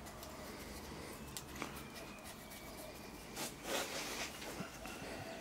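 Faint scraping and small clicks of a screwdriver probing the oil drain hole in the base of a semi-hermetic refrigeration compressor, with two brief louder scrapes a little after three and a half seconds in.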